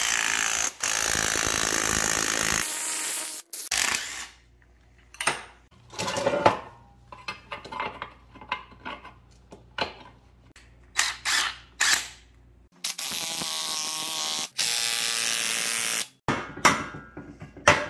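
A power tool runs in two bursts of about three seconds each, near the start and again near the end, during metal shop work on exhaust pipe. Between the bursts come separate metal clanks and taps of tools being handled.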